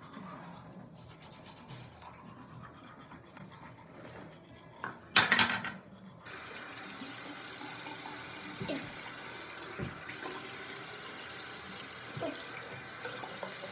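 Bathroom sink tap running steadily, turned on about six seconds in just after a short loud noise, with a few soft knocks over the flow.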